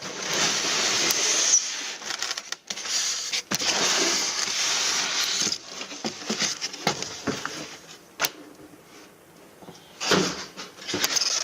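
Cardboard box being slid open and its packaging handled: two long stretches of scraping, rustling noise, then scattered light knocks and handling sounds, with a quieter spell near the end.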